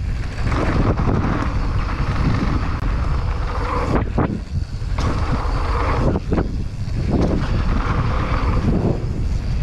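Wind buffeting an action camera's microphone during a fast mountain-bike descent on dirt singletrack, with a heavy rumble from the tyres on the trail. Several sharp knocks from the bike going over bumps come between about four and six and a half seconds in.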